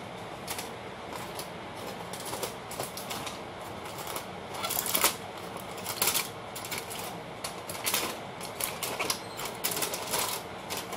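Aluminium foil crinkling and crackling as it is worked loose and peeled off the rim of a roasting pan, an irregular run of crisp rustles with the loudest crackles about five and six seconds in.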